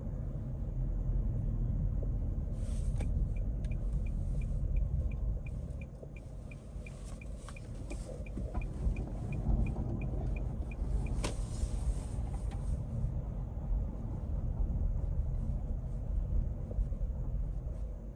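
Road rumble inside a slowing car's cabin, with the turn-signal indicator ticking evenly at about three ticks a second for several seconds as the car turns off the road. There is a single knock near the end of the ticking.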